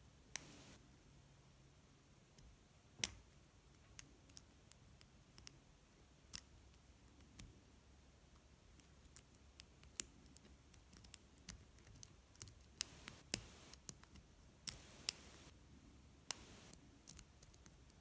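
Steel lock pick clicking and scraping against the pin stack of a brass Guard padlock held under tension: many irregular sharp clicks, some in quick clusters, with a few brief rasps.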